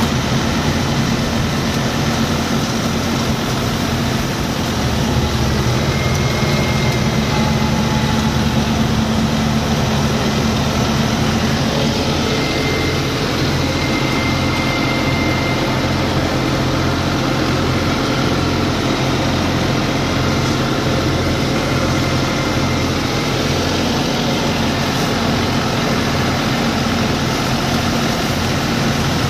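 Tractor-driven Punni B2B thresher running steadily while threshing bundles of dry crop, together with the tractor's engine: a continuous mechanical drone with a low pulsing throb, getting a little louder about five seconds in.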